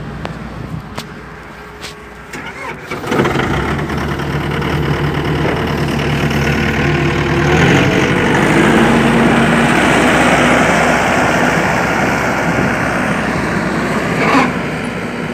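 Tracked skid steer loader's engine starting about three seconds in after a few clicks, then running steadily and picking up speed around eight seconds in, with a brief rising whine near the end.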